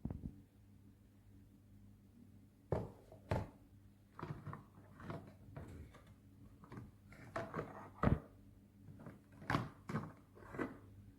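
Irregular knocks, clicks and short rattles, like hard objects being handled and set down, over a faint steady hum.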